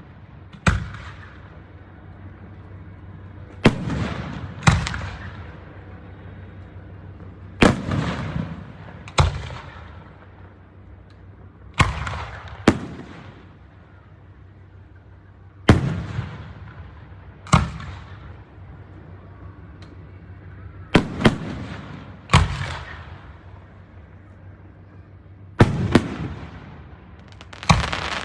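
Fireworks display: aerial shells bursting with sharp bangs, about fourteen at irregular intervals and often in pairs a second or so apart. Each bang is followed by an echoing tail that fades over a second or two.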